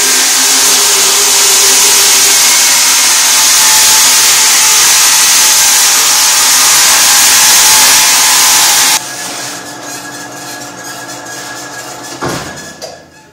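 Vertical metal-cutting band saw ripping a strip off a sheet of 16-gauge steel: a loud, steady, hissing screech of the blade in the metal. About nine seconds in the cut ends abruptly and the saw runs on much more quietly, fading away near the end.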